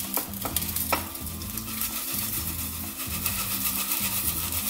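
Potassium hydroxide flakes poured into water, the solution sizzling and crackling as the water boils where the flakes land, from the heat of their dissolving. A few sharp clicks in the first second.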